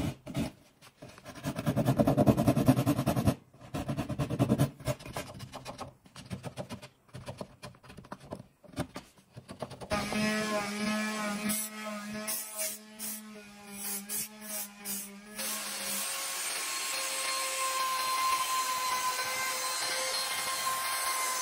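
Hand saw cutting spruce in quick, even strokes, with two louder stretches of sawing. About ten seconds in it gives way to an electric power tool running steadily.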